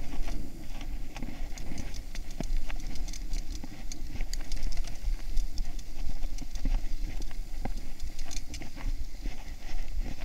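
Mountain bike ridden over a dirt singletrack: tyres on dirt and stones, with irregular sharp clicks and rattles from the bike over rough ground, and a steady low wind rumble on the microphone.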